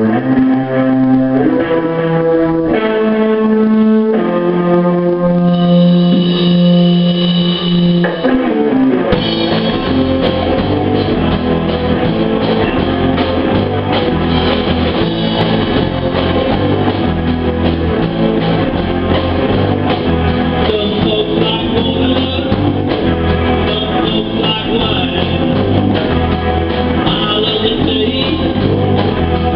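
Small live rock band with electric guitars and a drum kit: a guitar plays a held-note intro alone, then the drums come in about nine seconds in and the whole band plays together on a steady rock beat.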